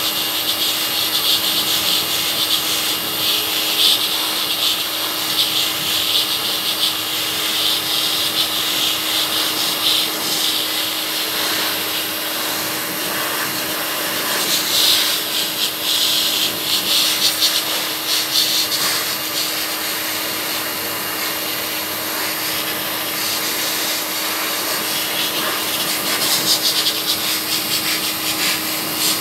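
Pet grooming blower running steadily, blowing air onto a cat's fur: a constant rush of air with a steady hum.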